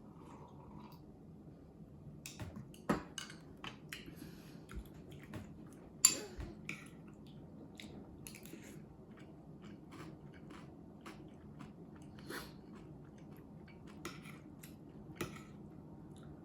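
Close-miked eating: quiet chewing with scattered small clicks and taps of tableware. The sharpest click comes about six seconds in, with another about three seconds in.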